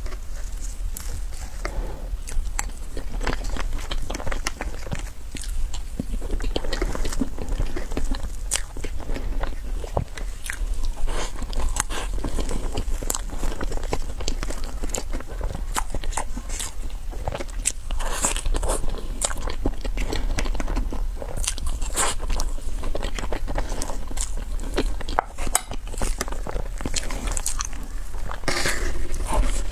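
Close-miked biting and chewing of a crunchy dessert, with many sharp, irregular crunching clicks throughout.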